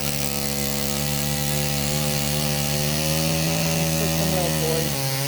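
A small motor running at a steady high speed with an even, unchanging pitch, part of chainsaw sharpening work.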